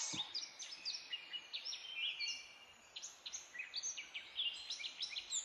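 Small birds chirping in the background: a steady run of quick, high, faint notes.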